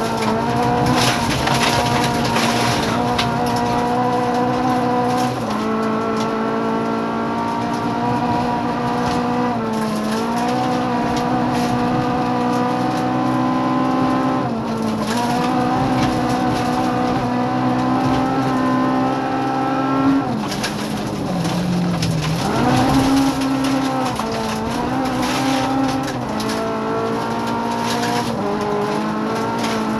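Rally car engine running hard on a gravel stage, heard from inside the cockpit. Its pitch dips briefly every few seconds as the driver changes gear. About twenty seconds in the pitch falls further as the car slows for a corner, then climbs again. Tyre and gravel noise hisses underneath.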